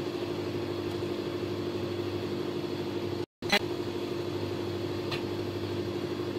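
A steady mechanical hum, as from a fan or running appliance, with a short dropout to silence about halfway through.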